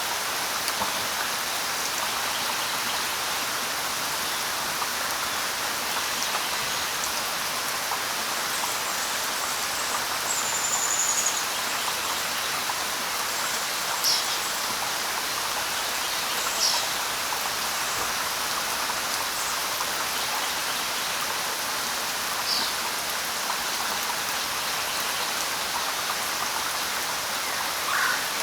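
Steady light rain falling, an even hiss, with a few brief bird chirps scattered through it.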